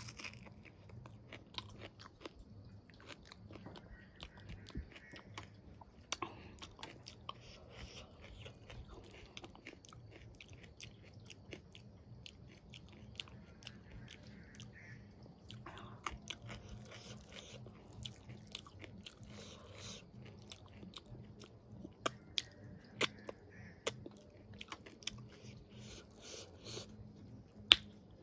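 Close-miked chewing and biting of a mouthful of rice and vegetables eaten by hand, with many small wet mouth clicks and lip smacks.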